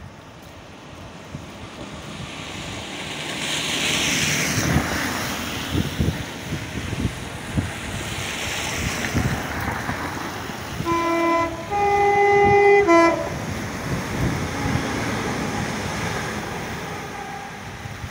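Class 195 diesel multiple unit sounding its four-tone horn about eleven seconds in: a short lower chord, a longer higher chord, then a brief lower chord again. This rides over the running of the approaching train on the track, with repeated low thumps from the wheels.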